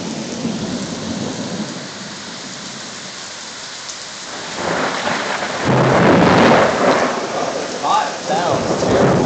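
Heavy rain falling steadily. About four and a half seconds in, a rumble of thunder swells up, loudest around six to seven seconds, and rolls on to the end.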